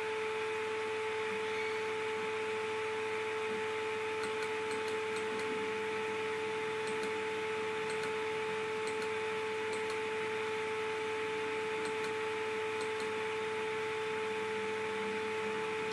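Steady electrical hum from the recording chain: a constant mid-pitched whine with a fainter higher overtone over an even hiss, with a few faint ticks scattered through it.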